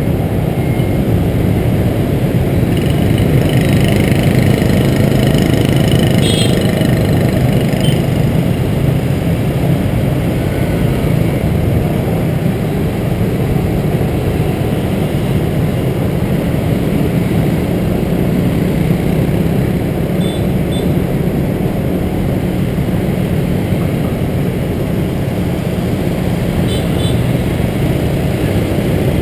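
Motor scooter riding in dense motorbike and car traffic: a steady rumble of engines and road noise, heard from the moving scooter.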